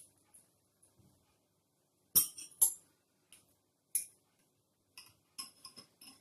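A metal ladle and spoon clink against a ceramic bowl and each other as a boiled egg is lowered into liquid dye. The clinks are sharp and separate: two loud ones about two seconds in, then lighter scattered ones, bunched near the end.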